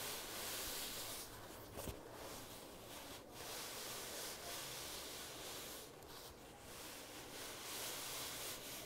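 Fingertips rubbing and scratching across the ribs of corduroy trousers. The soft, scratchy fabric rubbing runs continuously, with a few brief pauses.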